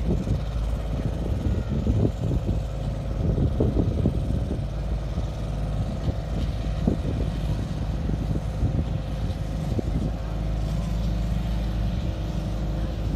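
Compact diesel pulling tractor's engine running hard under load as it drags a weight-transfer sled. Its note shifts about ten seconds in.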